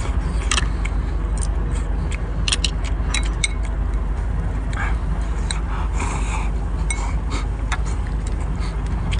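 Chopsticks clicking and clinking against a small glass bowl in many short, irregular taps while noodles are lifted and eaten, with chewing, over a steady low background rumble.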